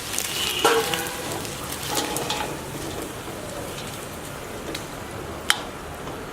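Pepper chicken sizzling and crackling as it dry-roasts in a pan, with a few clinks in the first couple of seconds and one sharp knock about five and a half seconds in.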